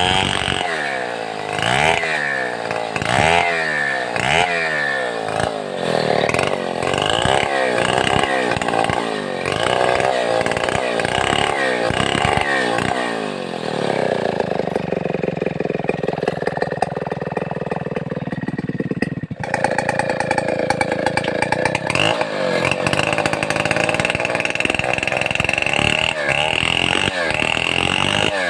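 Stihl 070 chainsaw, a large two-stroke saw, revved up and down over and over in quick blips, each with a rising and falling engine pitch. About twenty seconds in it settles into steady high-speed running, as when cutting through a mahogany log.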